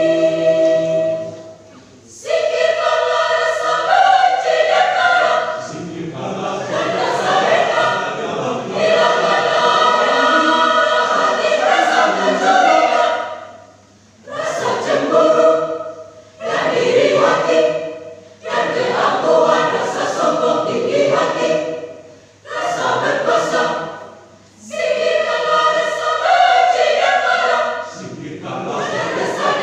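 Church youth choir singing a hymn in several voices, in held phrases of a few seconds with brief pauses between them.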